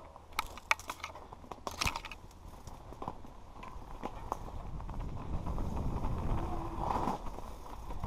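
Mountain bike descending a rocky, loose-stone singletrack: tyres crunching over stones, with sharp clicks and rattles of the bike in the first couple of seconds. A low rumble then grows steadily louder as speed builds.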